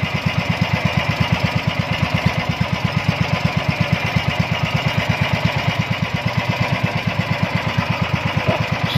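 A small fishing boat's engine running steadily with a fast, even putter, under a steady hiss.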